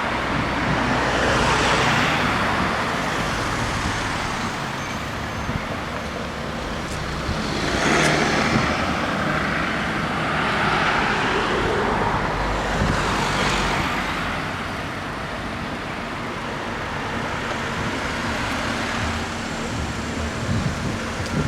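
Road traffic: several cars driving past one after another, each swelling and fading over a steady background of traffic noise.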